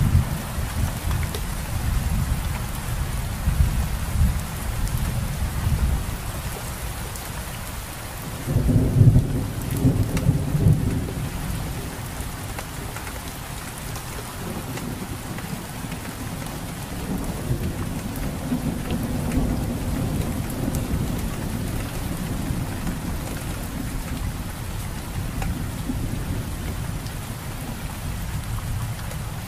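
Steady rain with a continuous hiss, under rolling thunder. The thunder rumbles heavily through the first few seconds, swells loudest about nine seconds in, then rolls on more softly.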